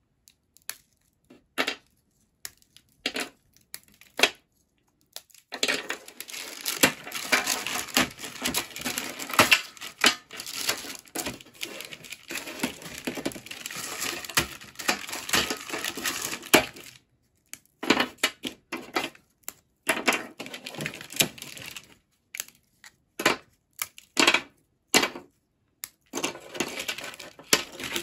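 Cooled, hardened peanut brittle being snapped into pieces by hand: sharp cracks and crunching. There are scattered snaps at first, a long run of crackling through the middle, then separate snaps again.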